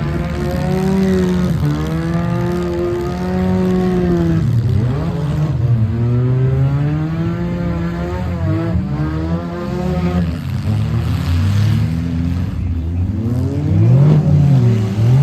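Several compact-car engines revving at once in a demolition derby heat, their pitches rising and falling and crossing one another as the cars accelerate and back off.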